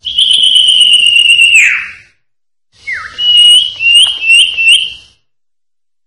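Common iora (cipoh) singing: a long, slightly falling whistle that drops away sharply at its end, then after a short pause a quick falling note and four short upturned whistled notes in a row.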